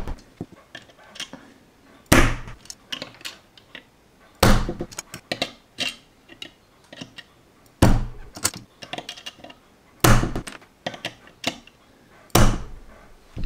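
LEGO bricks being pressed down hard onto a plastic LEGO car model on a tabletop, five sharp thunks about two and a half seconds apart as the bricks are seated, with light clicking of tweezers and plastic parts in between.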